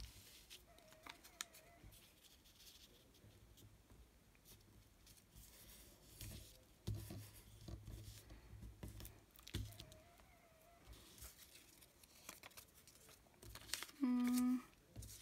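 Faint handling of paper pieces: rustling, tearing and scissor cuts with scattered light taps. Near the end comes a short steady hum, the loudest sound.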